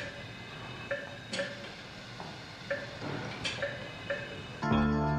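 Hospital patient monitor giving short electronic beeps, singly and in pairs, with a few light clinks. Background music comes in near the end.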